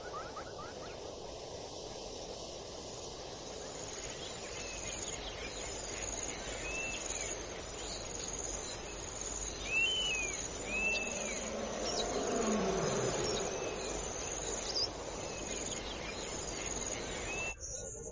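Savanna ambience of steady chirring insects, with scattered bird chirps. Past the middle a lion roars, a low sound that swells and falls in pitch.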